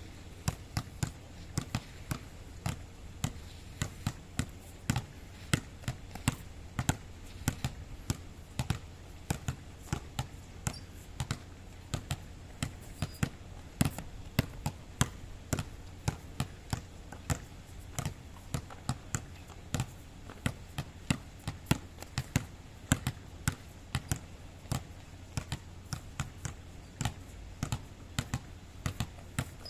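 A long run of sharp knocks, about two to three a second and slightly uneven, like an object being struck or bounced over and over, over a steady low hum.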